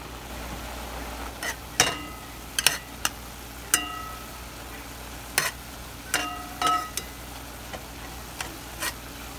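Metal spoon stirring ground turkey and onion in a pot, clinking against the pot with a series of sharp, ringing knocks, over the steady sizzle of the meat frying.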